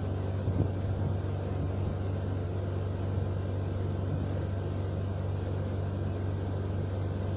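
A whiteboard being wiped with a duster: soft rubbing over a steady low hum and background hiss.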